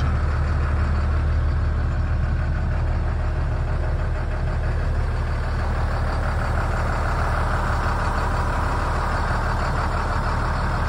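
A 2007 International DuraStar 4300's 7.6-litre DT466 diesel engine idling steadily, heard from inside the cab.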